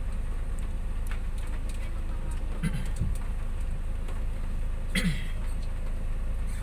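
Steady low engine rumble heard from inside a car's cabin, with a few light clicks and two brief voice sounds, the louder one about five seconds in.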